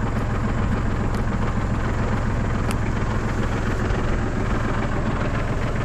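New Holland TC33 compact tractor's diesel engine running steadily with an even hum as the tractor drives along.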